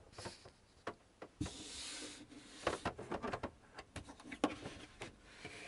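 Thin plastic panel being pushed and worked loose by hand: scattered clicks and knocks, with a scraping rub about a second and a half in and again near the end.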